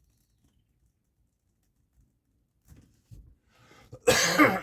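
Near silence with a few faint small clicks, then near the end a man's loud, breathy exhale.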